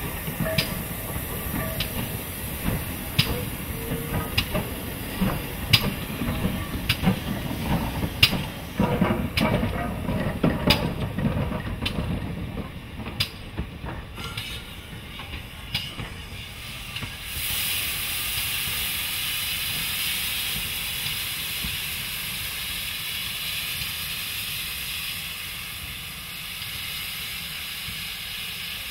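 GWR Manor-class 4-6-0 steam locomotive Odney Manor and its carriages rolling slowly past: a low rumble, with wheels clicking over rail joints about once a second. A little over halfway through, a steady hiss of escaping steam starts suddenly and continues.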